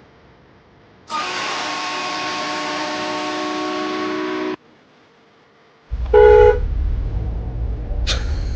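A long, steady whistling tone with hiss lasting about three and a half seconds and cutting off suddenly; then, about a second and a half later, a short loud honk, followed by a low rumble.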